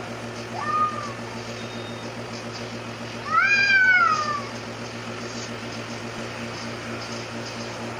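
Domestic cat yowling in an aggressive face-off with another cat: a short yowl about half a second in, then a louder, drawn-out yowl that rises and falls in pitch about three seconds in, over a steady low hum.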